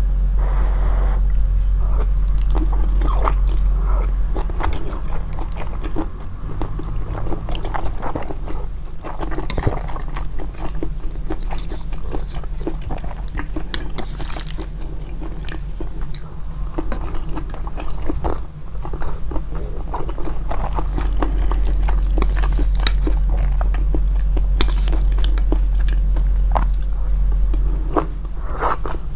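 Close-miked mouth sounds of someone chewing japchae glass noodles: dense, irregular wet smacks and clicks with occasional louder bites, over a steady low hum.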